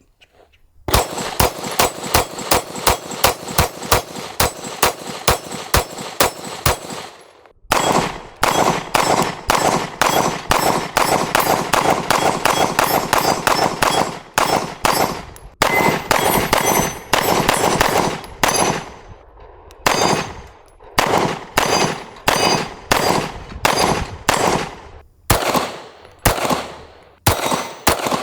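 Springfield Armory Prodigy Compact 9mm pistol being fired in quick strings, about two to three shots a second, with short breaks between strings about seven, nineteen and twenty-five seconds in.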